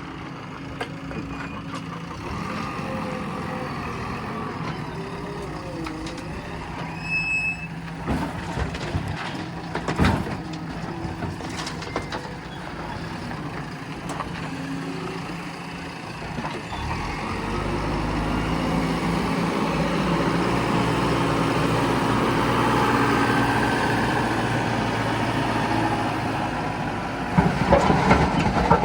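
Diesel engine of a JCB backhoe loader running and working under load. It grows louder about two-thirds of the way through, and there are several sharp knocks and clanks around a third of the way in and again near the end.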